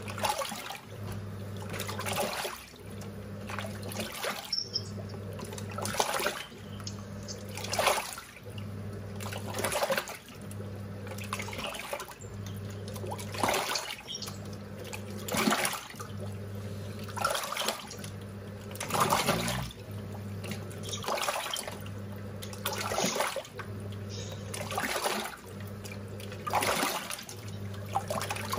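Giantex EP23113GB top-loading washing machine agitating its load in a fabric-softener rinse. The pulsator motor hums in spells of about a second, roughly every two seconds, with water sloshing and splashing between them.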